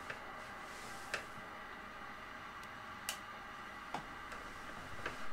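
Faint steady electrical hum and hiss, with a few sharp isolated clicks at irregular intervals, the clearest about a second in and about three seconds in.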